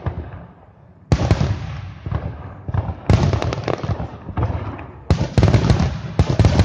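Aerial firework shells bursting in quick succession, about six sudden bangs, each followed by a dense crackle that fades. The bursts come thicker in the last second and a half.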